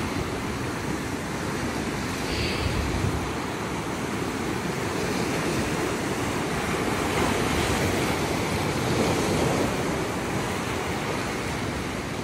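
Sea surf breaking and washing over rocks in a steady rush, swelling louder a couple of times as bigger waves come in.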